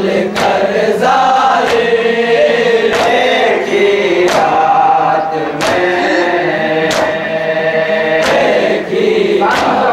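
A Shia noha (lament) chanted by a chorus of men, with sharp slaps about every 1.3 seconds from matam, chest-beating that keeps the beat of the lament.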